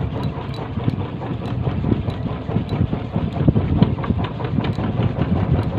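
Wind buffeting the microphone in uneven gusts, over the running noise of a small fishing boat on open sea.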